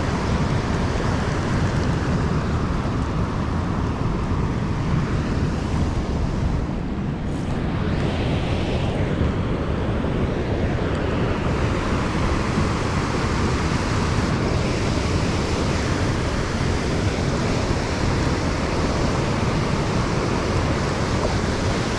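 Fast, churning river water rushing steadily, with wind rumbling on the microphone.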